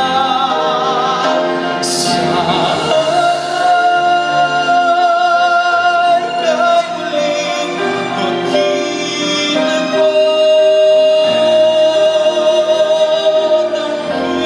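A male singer singing a ballad live over orchestral accompaniment, holding long notes with vibrato.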